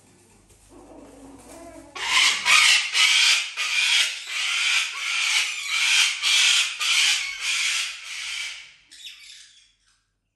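Cockatoo screeching: a run of loud, harsh screams, about two a second, starting about two seconds in and dying away shortly before the end.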